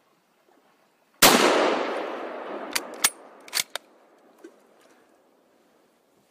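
A single hunting-rifle shot with a long echoing tail that dies away over about two seconds, followed by four sharp clicks over the next second.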